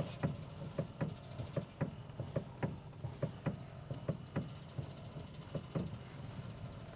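A car's steering rack knocking over and over, about three knocks a second, with the engine idling underneath. It is the knock in the steering rack, a sign of play in the rack.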